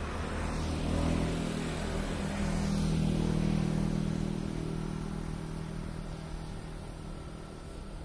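A motor vehicle's engine passing by, its low hum growing louder over the first few seconds and then fading away.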